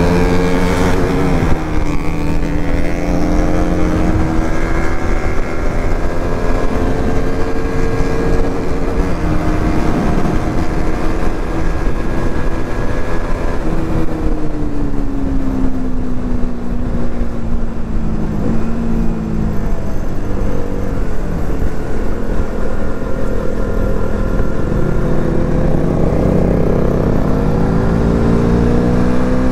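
Motorcycle engine running under way, its pitch rising in the first couple of seconds, falling slowly through the middle as the bike slows, and climbing again near the end as it speeds up. Wind rushes over the microphone throughout.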